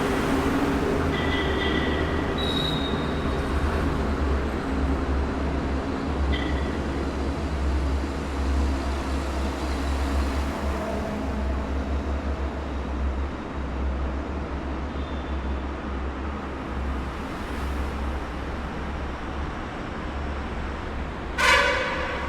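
Highway tunnel traffic: a steady, echoing rumble and hum of vehicles passing through the tunnel, slowly swelling and easing. Near the end comes one brief, loud pitched blast.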